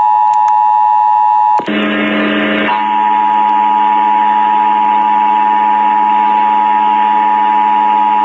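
Emergency Alert System attention signal played over the radio: the steady two-tone 853 and 960 Hz alert tone. About a second and a half in there is about a second of noise, after which the tone carries on sounding duller, with a low hum under it.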